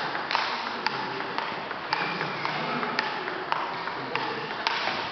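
Table tennis ball clicking off the rackets and the table in a rally, about two hits a second.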